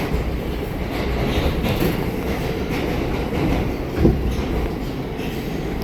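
R179 subway car running between stations, a steady rumble of wheels and running gear on the track with clickety-clack over the rail joints, heard from inside the car. There is a single louder knock about four seconds in.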